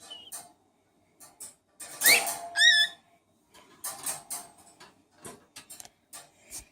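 A small parrot, which its finder likens to a cockatiel, gives two short chirps about two seconds in: a quick rising one, then a warbling one. Scattered clicks and rustles are heard around them.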